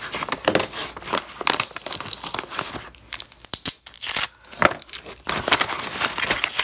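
Paper and plastic packaging rustling and crinkling as they are handled, in quick, irregular crackles of varying loudness.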